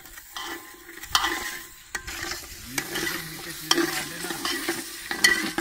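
A metal spoon stirring and scraping curry masala frying in a large metal pot, the oil sizzling, with several sharp clicks as the spoon knocks against the pot.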